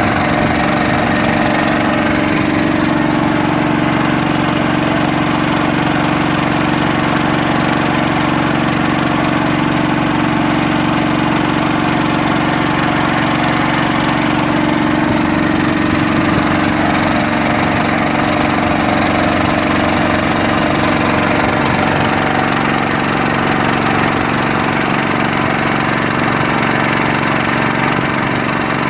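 Boat engine running steadily, an even drone with no change in speed.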